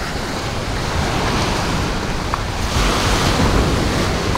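Sea waves washing onto a sandy beach, with wind rumbling on the microphone; the hiss of the surf swells a little under three seconds in.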